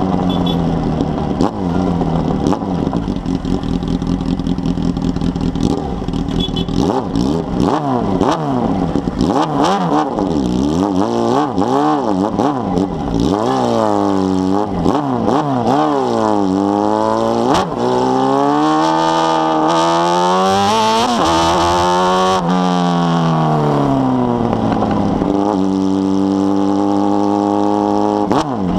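Honda Hornet motorcycle's inline-four engine through a 4-into-1 exhaust, under way and revving: its pitch rises and falls again and again as it accelerates and backs off, then holds fairly steady near the end.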